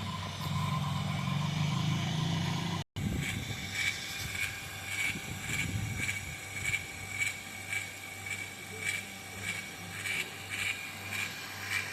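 Two-stage vacuum pump running, a steady mechanical hum, while pulling a vacuum on an air-conditioning system. About three seconds in the sound cuts out suddenly. It resumes as a steady hum with a regular pulse about twice a second.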